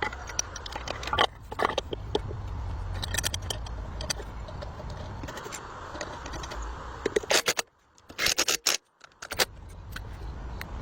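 Repeated scraping with clicks and clinks in short bursts, over a low steady rumble, broken off abruptly twice in the second half.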